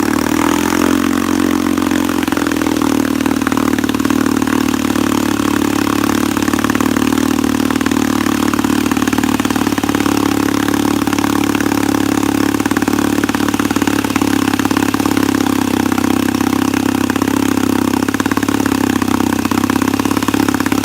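1964 Wards Sea King 3 hp two-stroke outboard motor running steadily. Its speed wavers for the first couple of seconds, then settles, with the carburetor needle set on the lean side.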